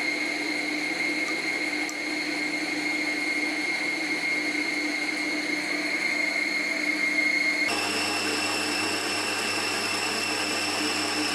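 Electric stand mixer's motor running steadily with a whine while its beater creams butter and sugar. About eight seconds in, the whine jumps suddenly to a higher pitch and holds there.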